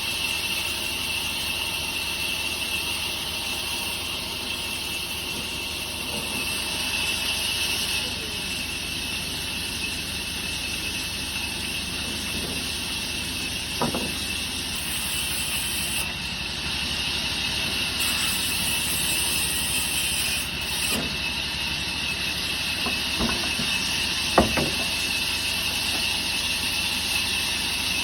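Steady machine noise: a high hiss and hum from running workshop machinery, broken a few times by short sharp knocks.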